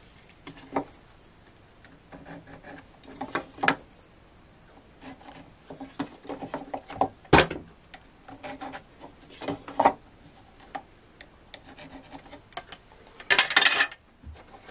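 Pencil scratching lines across the end grain of a square spalted beech blank against a plastic square, the square sliding and knocking on the wood in short uneven strokes. There is a sharp knock about seven seconds in and a louder scrape near the end.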